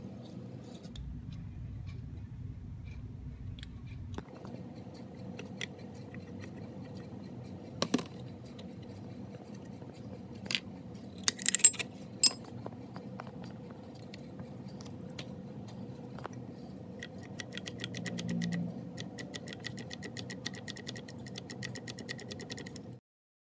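Metal parts of an old Singer Model 15 sewing machine being handled: a few sharp metallic clinks about halfway through, then a fast run of light ticks near the end, over a steady low hum.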